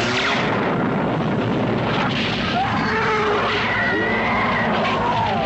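Cartoon explosion sound effect: a sudden blast as a stone wall bursts apart, followed by a sustained rumble of crashing rock.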